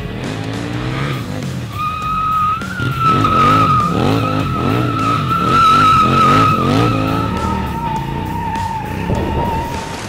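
A motorcycle engine revving up and down repeatedly as the bike drifts. A rear tyre squeals in a long steady screech from about two seconds in, and the screech drops a little in pitch near the end.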